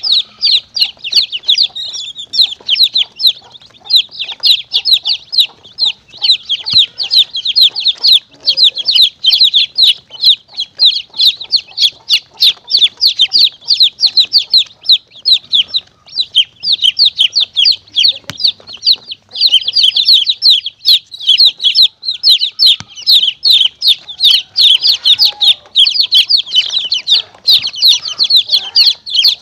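Recorded chicks peeping rapidly and without a break, many short high-pitched notes a second. This is a predator-calling track used to lure monitor lizards and mongooses.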